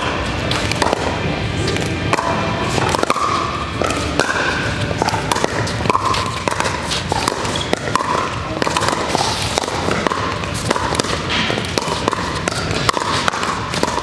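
Pickleball paddles striking a plastic ball in a doubles rally, a run of sharp pops at irregular intervals, with more hits from neighbouring courts, over background music.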